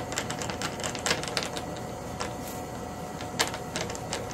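Screwdriver turning a wing-mounting screw home into the model jet, a run of quick irregular clicks and ticks that thin out after about a second and a half, with a few more near the end.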